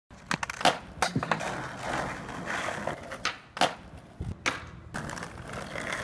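Skateboard rolling, its wheels running over the ground, with a string of sharp, irregular clacks and knocks from the board.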